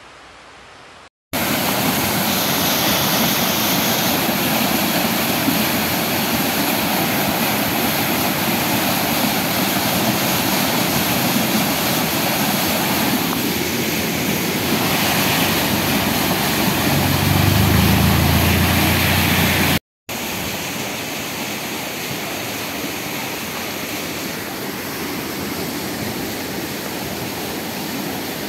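Rain and rainwater runoff rushing along a wet paved road and its roadside verge, a loud steady hiss. A low rumble swells for a couple of seconds past the middle. The sound cuts out briefly twice, and after the second cut the rushing goes on a little quieter.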